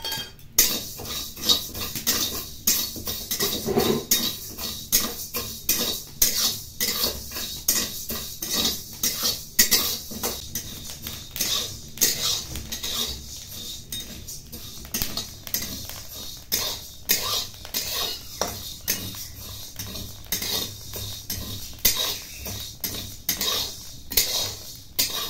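Metal spatula scraping and stirring parboiled rice grains around a dry metal kadai as the rice is roasted, in repeated short strokes roughly two a second.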